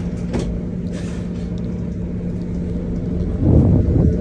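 City bus interior: the engine and drivetrain run as a steady low drone with a constant hum, and there is a brief knock about half a second in. The rumble grows louder and rougher about three and a half seconds in, as the bus gets moving after its doors close.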